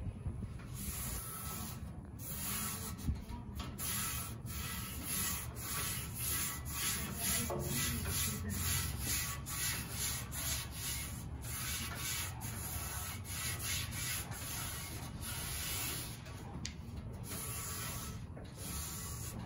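Netted dish cloth scrubbing back and forth over a Blackstone gas griddle's flat steel cooktop, a scratchy rubbing in quick, even strokes, about two or three a second. The cloth is lifting dust and residue off the steel before cooking.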